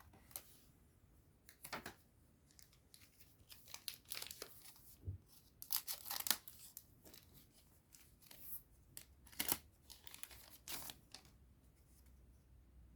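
A trading card booster pack wrapper being torn open and crinkled, followed by cards shuffled and handled: a series of faint, irregular rips and rustles, the clearest around two, six, nine and eleven seconds in.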